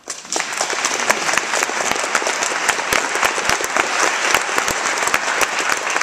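Audience applauding: a steady round of many hands clapping that starts suddenly.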